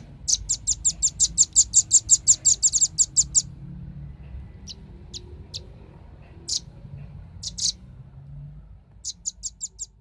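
Velvet-fronted nuthatch calling: a fast run of sharp, high chips, about eight a second for some three seconds, then scattered single chips and a short run of about six near the end.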